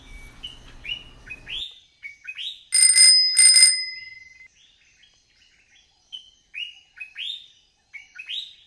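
Birds chirping in short, repeated downward chirps, with two loud ringing strikes close together about three seconds in. The background hum under the chirps stops abruptly about a second and a half in.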